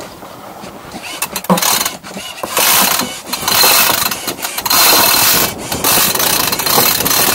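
Sailboat sheet winch being cranked with a winch handle, its pawls ratcheting loudly in stretches of a second or two with brief pauses between. This is the headsail sheet being trimmed in after a tack.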